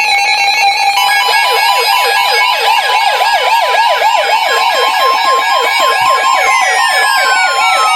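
Emergency alert tones ahead of a severe thunderstorm warning: loud beeping steady tones, joined about a second in by a fast, repeating siren-like wail that sweeps up and down several times a second, with a falling glide near the end.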